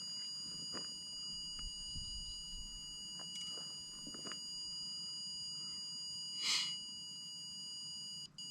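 A REM pod going off, giving a steady high electronic tone made of several pitches at once. About six and a half seconds in, a short burst of hiss cuts across it.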